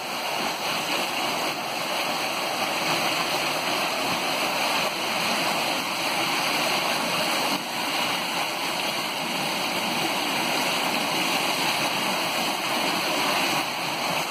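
Water pouring and splashing off the wooden overshot waterwheel's buckets into the tailrace: a steady rushing splash.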